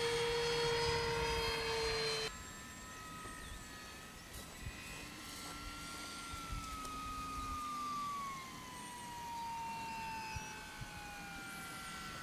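Radio-controlled aerobatic model airplane in flight, its motor and propeller humming at a steady pitch. About two seconds in the sound cuts off abruptly, and a fainter hum takes over that slowly falls in pitch.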